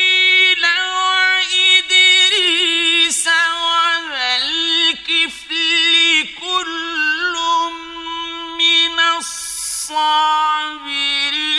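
A male reciter's mujawwad Quran recitation: one voice chanting in long held notes with wavering, ornamented turns. There is a brief break about nine seconds in, then the voice resumes slightly lower.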